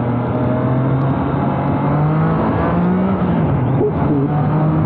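2021 Triumph Trident 660's inline three-cylinder engine running, its note climbing, dropping about three seconds in, then climbing again.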